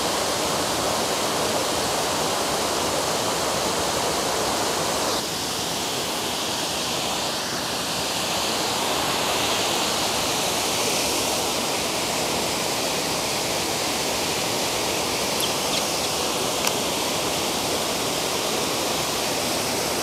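Spruce Brook's waterfall running full after days of rain, water cascading over rock ledges in a steady rush.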